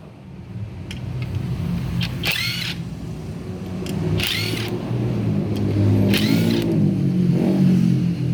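An engine running and getting louder in the second half, as if revved up, with short high-pitched squealing bursts about every two seconds over it.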